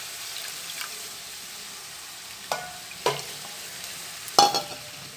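Pumpkin cooking in mustard paste, sizzling with a steady hiss in a metal kadai. A metal spatula knocks against the pan three times in the second half, each knock ringing briefly.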